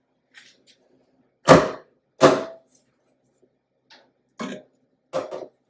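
Two sharp knocks against a metal cake pan full of batter, about a second and a half and two seconds in, the second leaving a short metallic ring. A few lighter knocks follow near the end.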